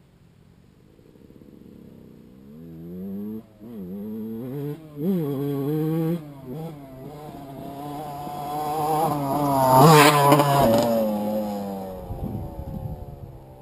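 Yamaha YZ125 two-stroke dirt bike revving up and letting off through the gears as it comes closer. It is loudest as it passes close by about ten seconds in, then its pitch drops and it fades away.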